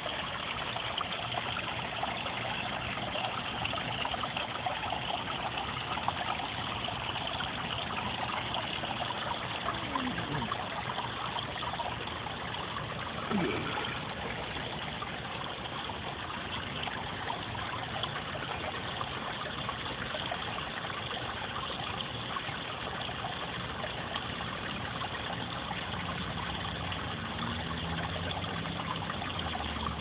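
Water trickling and splashing steadily down a rock garden waterfall, with a short falling tone about thirteen seconds in.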